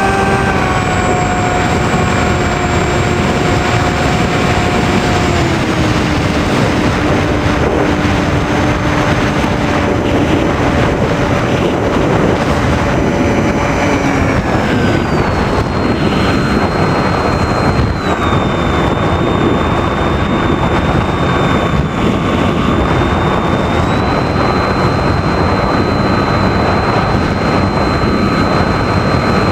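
Radio-controlled FPV airplane in flight: its motor and propeller drone on a steady pitch that steps down a few times and rises again later as the throttle changes, under a loud rushing noise.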